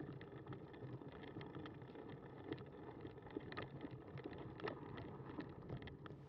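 Cannondale bicycle rolling along a snow-dusted dirt and gravel path: a steady low rumble from the tyres with many small irregular clicks and rattles.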